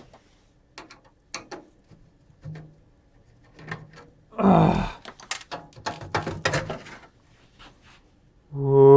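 Scattered clicks and knocks of tools and metal parts being handled while electronic equipment is dismantled, with a louder clatter about halfway. A steady chant-like music starts near the end.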